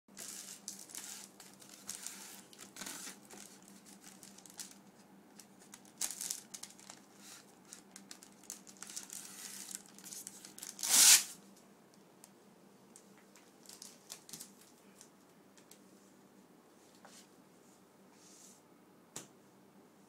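Crinkling and rustling of a thin plastic sheet handled by hand, smoothed down and shifted, in repeated bursts with one loud rustle about halfway through. After that it is mostly quiet, with a few soft clicks.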